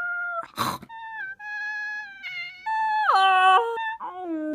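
A woman's high-pitched, wordless vocal squeals and whimpers in a silly animal-like voice: held tones that step up and down, dropping sharply lower about three seconds in. A short breathy hiss comes about half a second in.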